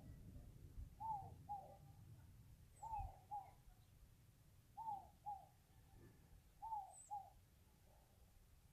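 A bird calling: a pair of short falling notes, repeated about every two seconds, four times over, with a few faint high chirps in between.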